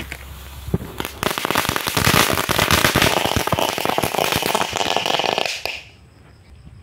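A chili firecracker (mercon cabe) set off inside a tin can: the fuse fizzes for about a second, then a rapid run of crackling pops goes on for about four seconds and stops abruptly near the end.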